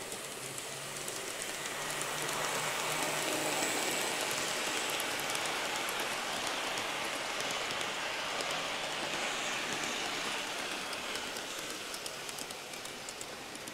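Kato Super Chief model train running on the layout track: a steady rolling hiss of metal wheels on rail with a faint motor hum and light ticking, loudest a few seconds in as the cars pass close by.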